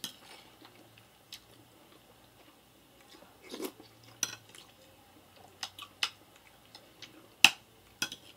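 A metal fork clinking and scraping against a ceramic plate of macaroni goulash in scattered sharp clicks, about eight of them, the loudest about seven seconds in, with soft chewing between.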